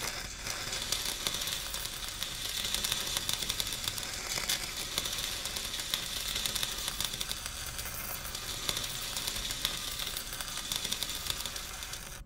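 Simulated stick (MMA) welding arc sound from a Soldamatic augmented-reality welding trainer: a steady crackling sizzle that starts abruptly and stops near the end.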